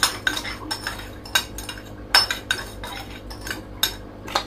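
Irregular light clinks and taps on a stainless steel mixing bowl as sugar is tipped from a plastic bag onto sliced mango, with a plastic spoon in the bowl.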